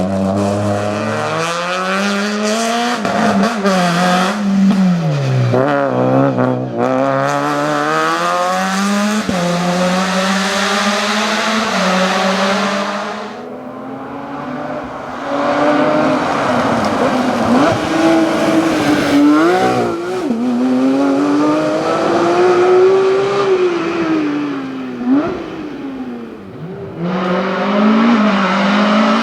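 Rally cars racing through a stage at full throttle, their engines revving up and dropping back through gear changes and braking. The engine note fades briefly about halfway and again near the end, as one car goes and the next arrives.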